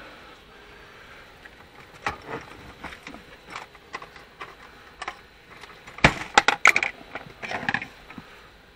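Clicks and light clattering of small hard objects being handled, with a quick cluster of sharp clicks about six to seven seconds in.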